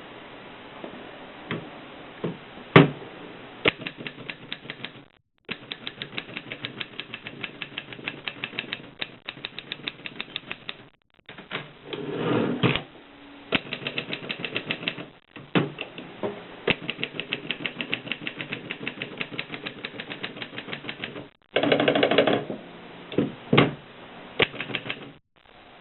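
Antique Mercedes manual typewriter being typed on: runs of quick key strikes at several a second, broken by a few louder, longer mechanical noises between the runs.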